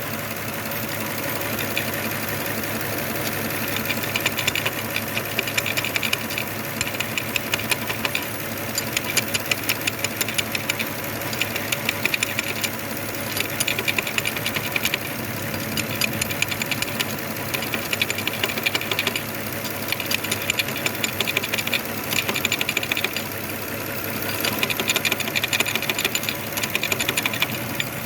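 Lexus ES330's 3.3-litre V6 idling with a dead number 5 cylinder caused by a stuck-closed fuel injector, while the injector is rapped in repeated bursts of rapid tapping to try to free it. The tapping comes in runs of a few seconds each, with short pauses between.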